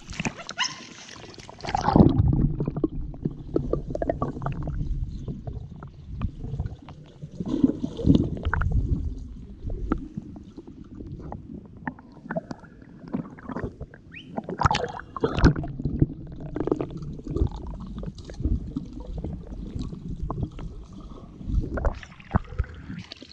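Pool water sloshing and gurgling against a camera at the water surface, muffled and low, with irregular thumps and splashes from a swimming dog's paddling. The first two seconds sound brighter, with splashing above the water.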